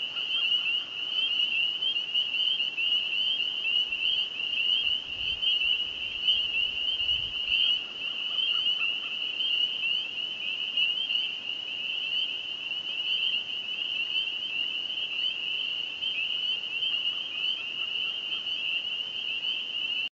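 Dense chorus of many spring peepers, their short, high, rising peeps overlapping into one continuous shrill ringing.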